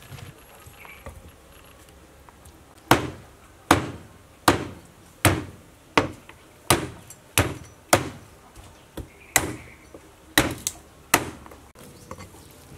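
Cleaver chopping chicken, a dozen or so sharp, heavy strokes at a steady pace a little faster than one a second, starting about three seconds in.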